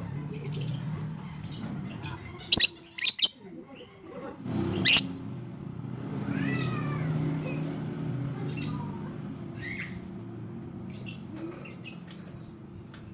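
Lovebirds giving short, shrill screeching calls: three loud ones a little before the middle, then fainter chirps and calls, over a low background murmur.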